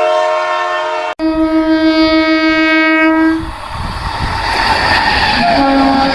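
Train horns at a railway station: a long multi-tone horn blast that cuts off abruptly about a second in, then a second steady horn until about three and a half seconds in. After that a train rumbles along the rails, and another horn begins near the end.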